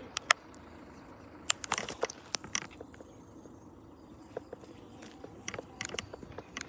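Irregular sharp clicks and crunches from footsteps and from handling of the phone doing the filming, with a cluster about one and a half to two seconds in and another near the end.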